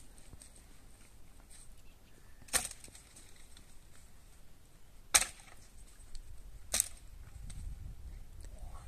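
Three sharp knocks, a couple of seconds apart, the middle one the loudest.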